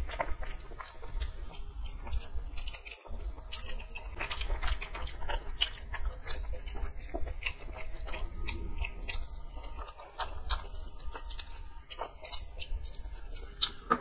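Two people biting and chewing fried chicken lollipops close to the microphone, with irregular sharp crunchy clicks.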